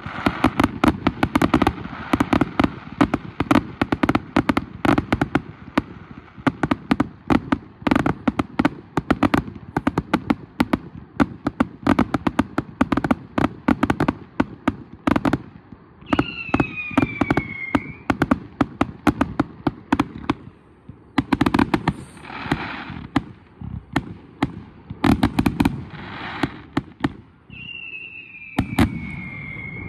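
Aerial fireworks going off: a dense barrage of sharp firework bangs, many a second, for about the first fifteen seconds, then thinner volleys. A falling whistle sounds about halfway through and again near the end.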